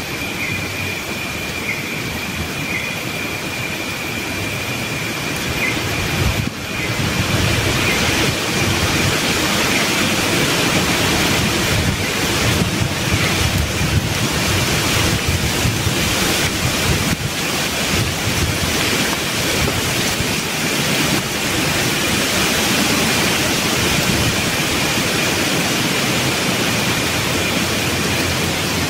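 Wind gusting through a rainforest canopy, leaves rustling in a continuous rush that swells about six seconds in and stays strong.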